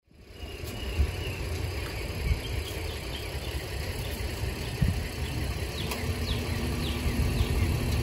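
Outdoor ambience: a steady insect drone over a low rumble, with a motor vehicle's engine hum joining for the last couple of seconds and a few short falling bird chirps.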